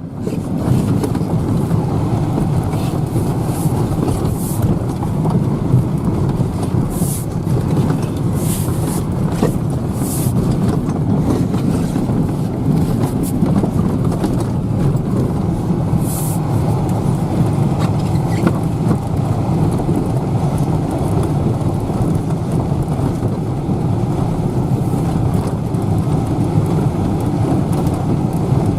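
Tractor engine running steadily while driving over rough frozen ground, with scattered rattles and knocks as it jolts over the bumps.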